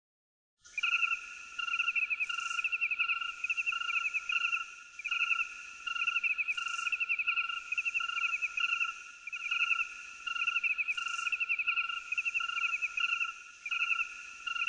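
Insects chirping in rapid pulses, sounding in short repeating bursts about once a second, starting a moment in.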